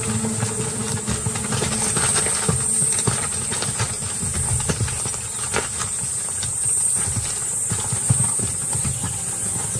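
Hooves of a herd of Thomson's gazelles running over dry, bare ground: a rapid, irregular patter of many hoofbeats, over a steady high hiss.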